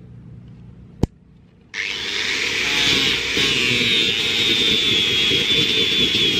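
Angle grinder running with a steady high whine as its disc grinds into a block of coconut-palm wood, starting abruptly about two seconds in. A single sharp click comes just before it.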